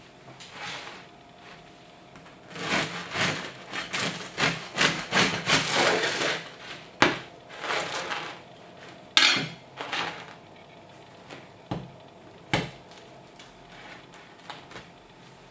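Serrated bread knife sawing through the crust of a freshly baked white loaf on a wooden cutting board: a quick run of back-and-forth strokes lasting about four seconds, then a few shorter strokes. A few sharp knocks on the board follow as the knife and loaf are set down.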